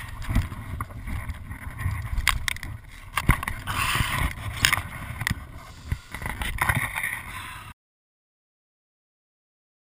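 Wind rumbling on a helmet camera's microphone, with scattered knocks and a swell of rustling about four seconds in as the rider moves about beside his fallen dirt bike in tall grass; the sound cuts off to silence near the end.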